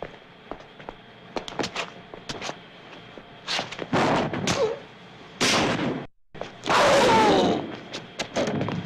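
Gunshot-like sound effects: a few light clicks and knocks, then three loud bursts with a rushing tail, the last and longest holding a falling whine.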